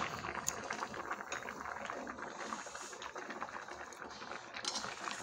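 Hotpot broth boiling in the pot: a steady bubbling with many small crackles and ticks.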